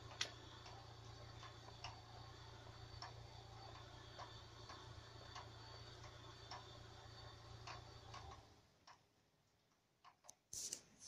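Faint, regular ticking, a little under two ticks a second, over a low steady hum; both cut out about eight seconds in.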